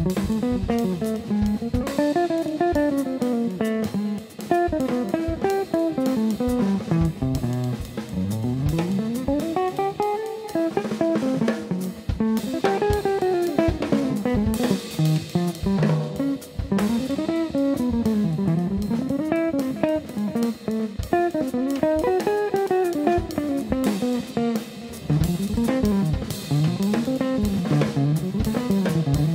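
Hollow-body archtop electric guitar and drum kit playing jazz as a duo: the guitar plays running single-note lines that climb and fall, over steady cymbal and drum accompaniment.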